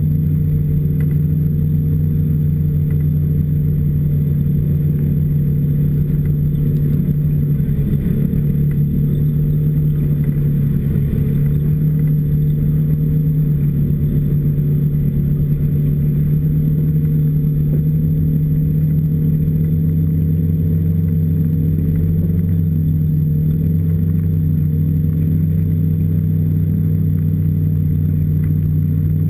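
Engine of an off-road vehicle running at a steady cruising pace, picked up by a camera mounted on the vehicle itself: a loud, even drone that barely changes in pitch.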